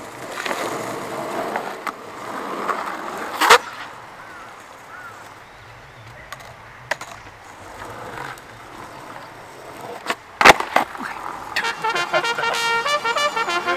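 Skateboard on a cheap blank deck rolling on asphalt as the rider pushes, with a sharp clack about three and a half seconds in. About ten and a half seconds in comes a loud double clack, the tail popping and the board landing a kickflip, and near the end a short music jingle starts.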